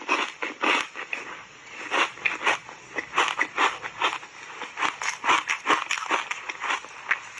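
Mouthful of crunchy foam reshaped ice coated in matcha powder being chewed close to a clip-on microphone: sharp, irregular crunches, about two or three a second.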